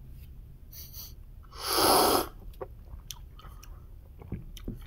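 A person slurps coffee from a ceramic cupping bowl to taste it: one loud, airy slurp about two seconds in, with a shorter, fainter intake of breath just before it and a few faint clicks afterwards.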